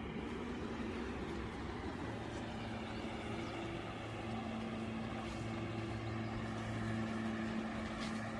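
Steady hum of a distant motor engine, holding one pitch and growing slightly louder toward the end.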